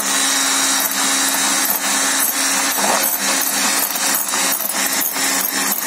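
Electric hand mixer running steadily, its twin wire beaters whipping egg whites and sugar into a meringue foam in a glass bowl: a steady motor hum under a bright whir, with frequent irregular ticks as the beaters knock and scrape the glass.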